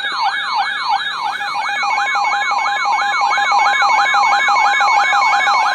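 Electronic alert siren sweeping quickly up and down, about four sweeps a second, with a steady alarm tone joining about two seconds in. It signals an incoming severe thunderstorm warning.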